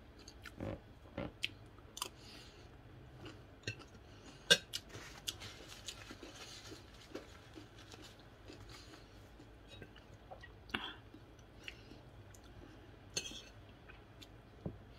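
Close-up chewing and mouth sounds of someone eating rice, chicken and salad, with scattered clicks and clinks of a metal spoon and fork against a plate; the sharpest click comes about four and a half seconds in.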